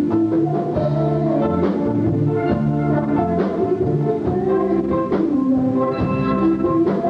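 Live band music with a steady drum beat and sustained keyboard or brass notes, playing a Malay pop song on stage.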